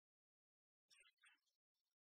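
Near silence, with a faint, brief scratchy noise about a second in.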